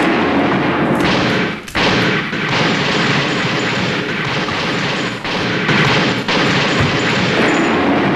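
Dense, overlapping film gunfire sound effects, shot after shot with heavier booms, in a loud continuous barrage that drops out briefly about a second and a half in.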